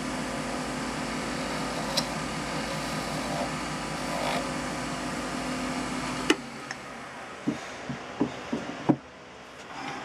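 Wood lathe motor running with a steady hum, a sharp click about two seconds in; a little past halfway the hum cuts off with a click, followed by several light knocks and clicks.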